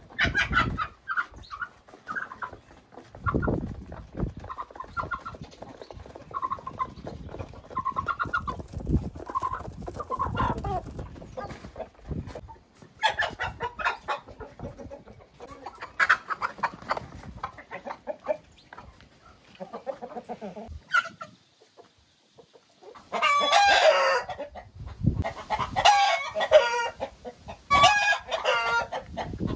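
Flock of domestic chickens clucking, short calls repeating through the first part, with roosters crowing in long, loud calls near the end.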